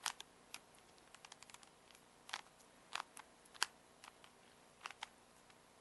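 Rubik's Cube layers being twisted by hand: irregular sharp plastic clicks and snaps, with a quick run of small clicks about a second in and several louder turns after.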